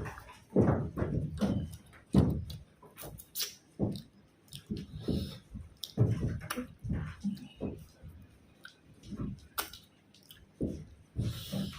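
Close-up eating sounds: irregular chewing and mouth noises with sharp little clicks, coming in short uneven bursts.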